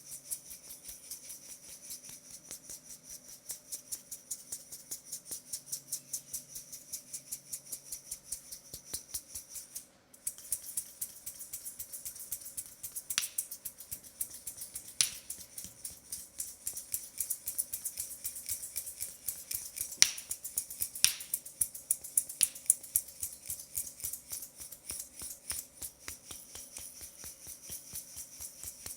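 Hands tapping rapidly on a leg in a close-miked massage, several sharp taps a second. The tapping stops briefly about a third of the way through, and a few louder cracks come in the middle.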